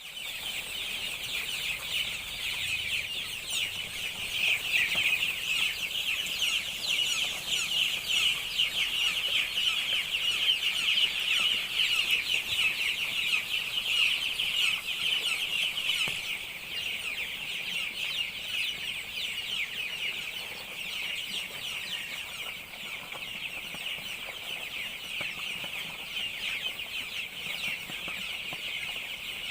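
A flock of Joper (Ayam Jowo Super) chickens calling all at once: a dense, high-pitched chorus of many short overlapping calls. It is loudest through the middle and eases a little past halfway.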